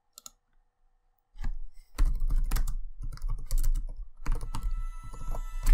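Typing on a computer keyboard: a few single key clicks, then rapid runs of keystrokes from about a second and a half in.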